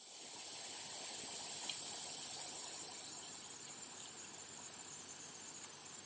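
Steady high-pitched hiss of a trail camera's night-time audio, a little louder in the first few seconds.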